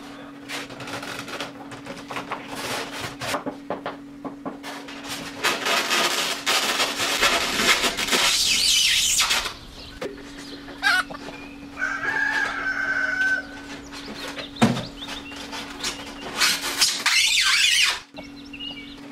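Polystyrene foam boards rubbing and squeaking against each other as they are handled and fitted. There are long scratchy scrapes, loudest midway and again near the end, and a wavering squeal a little after halfway, over a steady low hum.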